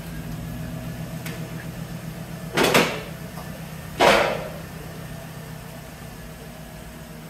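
Chevy Silverado pickup's engine idling as the truck backs slowly away, growing fainter. Two short, loud bursts of noise come about two and a half and four seconds in.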